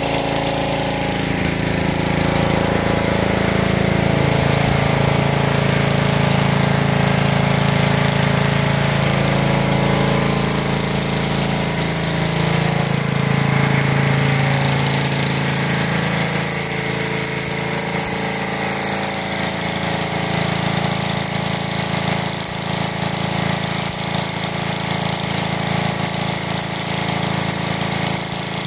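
Gas-engine pressure washer running steadily under load, with the hiss of the high-pressure water jet striking concrete.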